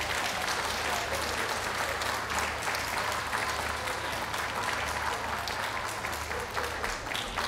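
Ringside audience applauding steadily, many hands clapping at once.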